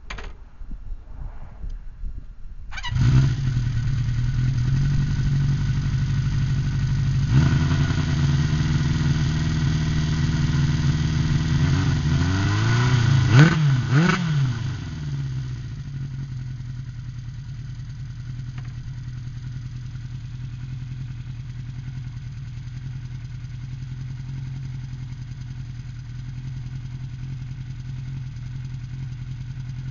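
Freshly rebuilt Honda CB350F inline-four engine, with a ported head and Web Cam camshaft, cranking and sputtering for a few seconds before it catches and runs at a fast idle. About ten seconds in it is revved twice in quick succession, then it settles to a steady, lower idle.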